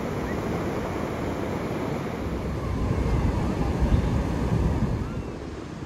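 Ocean surf breaking and washing up over flat wet sand, with wind buffeting the microphone. The wind rumble grows stronger in the middle.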